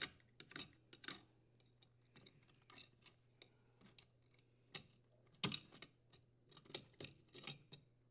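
Faint, scattered small clicks and ticks of a dishwasher's wire strain relief nut being unthreaded by hand and the strain relief worked free of the junction box, over a faint low hum.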